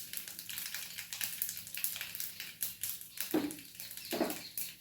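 Whole spices (mustard seeds, cumin, urad dal) crackling and sizzling in hot coconut oil in a pan for a tempering, a dense run of quick pops. Two short pitched cries, about three and four seconds in, sound over the crackle.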